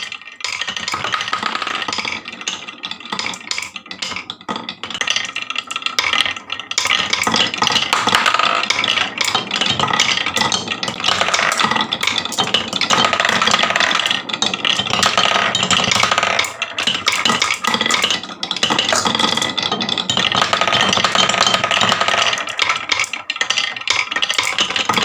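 Many marbles rolling and clattering down a wooden marble run, a dense, continuous rattle of clicks.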